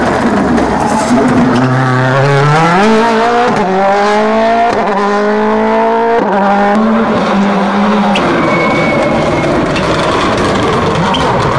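2017 Toyota Yaris WRC rally car's 1.6-litre turbocharged four-cylinder engine accelerating hard, climbing in pitch through three quick upshifts, then running on at a lower, steadier pitch as the car drives away.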